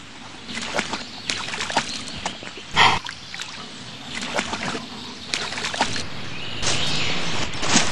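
Water splashing in a run of separate splashes, the loudest about three seconds in, then a steadier louder rush of water near the end.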